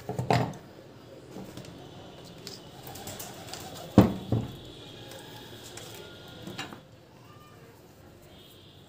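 A few sharp knocks and clicks of hard objects, the loudest about four seconds in.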